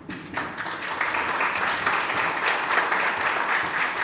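Audience applauding, many hands clapping at once, starting a moment in.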